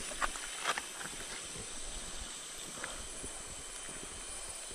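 Jungle river ambience: steady rushing of stream water under a high insect drone, with two short clicks in the first second.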